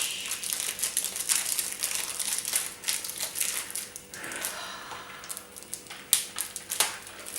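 Plastic packaging crinkling and crackling as it is handled and worked open, with many small irregular clicks; the packet is proving hard to get the Beyblade part out of.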